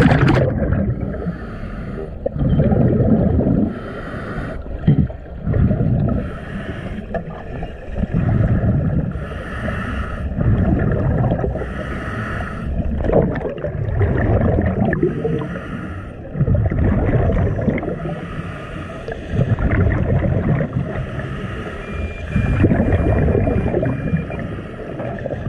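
Muffled underwater water noise with bubbling, swelling and fading every second or two. A faint thin tone sounds briefly near the end.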